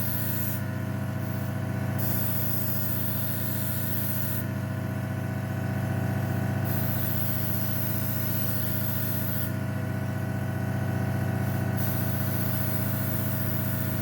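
Airbrush hissing as it sprays thinned acrylic paint, the hiss stopping three times for a second or two as the trigger is released, over the steady hum of a hobby airbrush compressor.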